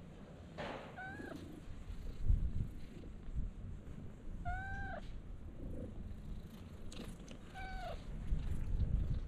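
Cat meowing three times. Each meow is short and rises then falls in pitch, coming about a second in, near the middle and near the end.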